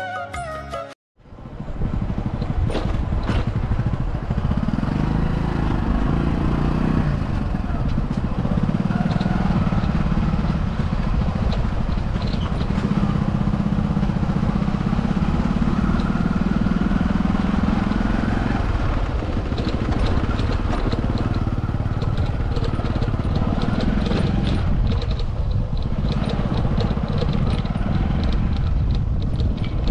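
A small vehicle engine running on the move, its pitch rising and falling with speed, over a low wind rumble, with light rattling in the second half.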